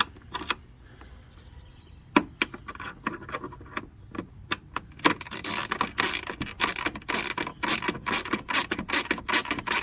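Ratchet wrench clicking as a 13 mm socket snugs down the hood latch bolts: a few separate clicks at first, then fast, nearly continuous ticking from about halfway in.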